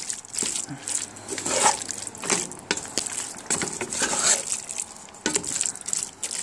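Wooden spoon stirring shredded chicken, salsa verde and melted cheese in a nonstick pan: a run of uneven wet, squishing strokes with the spoon scraping the pan.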